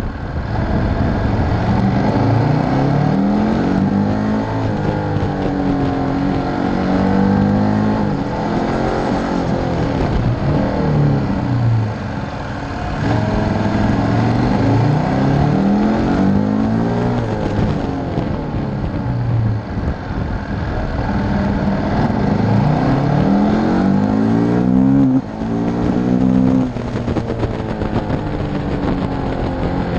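KTM V-twin motorcycle engine running hard along winding road, its pitch rising and falling over and over as the rider accelerates out of bends and backs off into them. The sound drops sharply for a moment about 25 seconds in.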